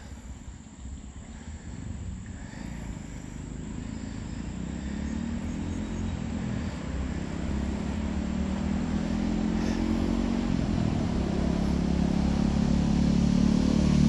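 A motor vehicle engine running and approaching, its low drone growing steadily louder over several seconds.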